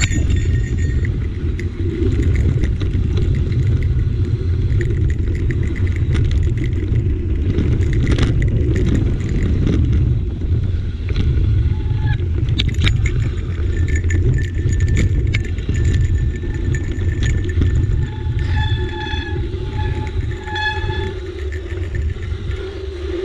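Mountain bike rolling fast down a dirt trail, heard from a camera mounted on the handlebars: a steady low rumble with rattles and clicks of the bike over bumps. A few short high squeaks sound near the end.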